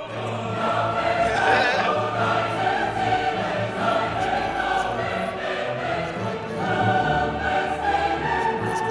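Music with sustained, choir-like singing over a steady bass line.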